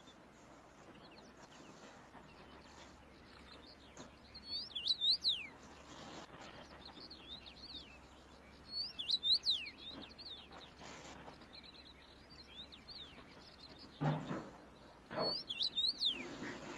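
Songbird singing in three short bursts a few seconds apart, each a quick run of high chirps that sweep sharply downward, over a faint steady outdoor background. Near the end come two short, lower sounds.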